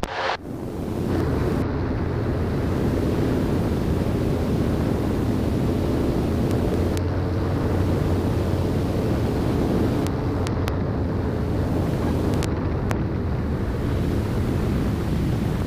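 Steady rush of wind buffeting the microphone of a camera mounted on the wing strut of an Aventura II light amphibian airplane as it moves fast along a runway, with a few faint ticks.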